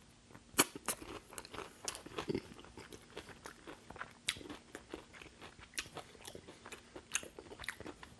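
Chewing and crunching a crispy breaded KFC hot wing, a run of sharp crunches of the fried breading, the two loudest within the first second.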